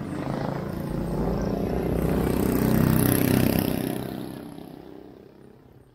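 Street traffic with a motor vehicle's engine passing close, growing louder to a peak about three seconds in, then fading away smoothly.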